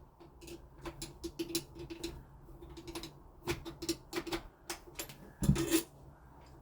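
Screws being driven in to fix a smart lock to a door: a run of irregular clicks and ticks, with one louder knock about five and a half seconds in.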